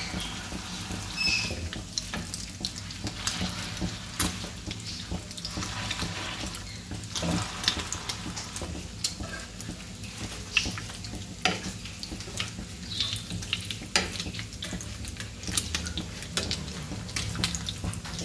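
Shami tikki patties shallow-frying in oil in a flat iron pan: a steady sizzle with frequent sharp crackling pops, and a metal slotted spatula scraping and clinking against the pan as the patties are pushed and turned.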